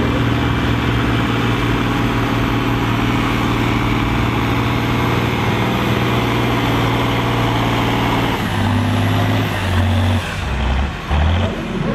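Diesel engine of an older Fendt tractor running hard under full load while it drags the pulling sled, a steady heavy note. About eight seconds in the note breaks up, stepping up and down with a couple of short dips in loudness.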